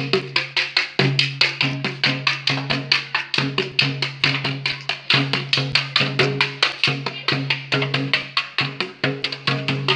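Music with rapid, even percussion hits over a sustained low bass line and a shifting melody.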